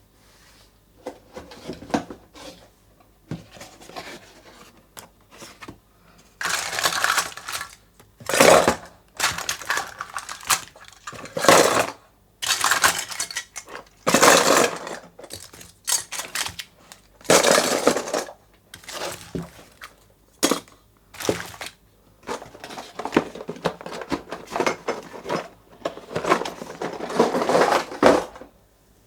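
Plastic candy wrappers crinkling and tearing open in repeated bursts of a second or two, between sharp clicks and clatters of the packaged sweets knocking together.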